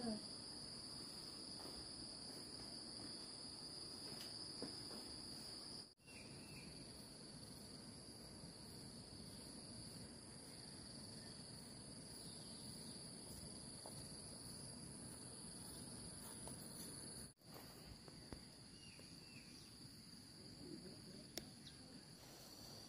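Insects trilling: a steady high-pitched buzz without pause over faint low background noise. The sound cuts out for an instant twice, about six seconds in and again around seventeen seconds.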